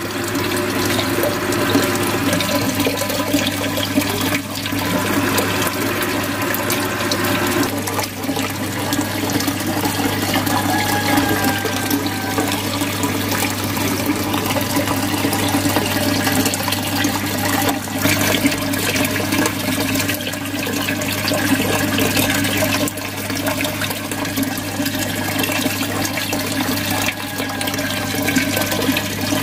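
Aquarium filter outflow splashing and trickling steadily. Its streams fall through the air into the tank's low water and churn up bubbles, over a steady low hum.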